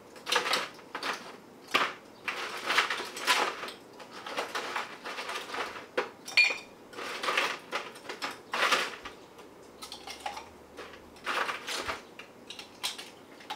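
Ice cubes being put into a small cocktail shaker, clattering and clinking in a long run of bursts. One clink about six seconds in rings briefly.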